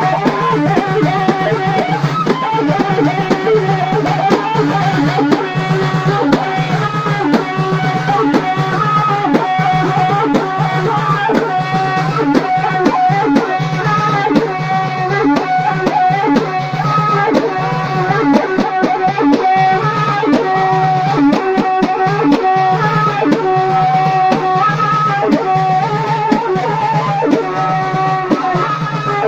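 Allaoui folk dance music: drums beating a steady rhythm under a repeating melody.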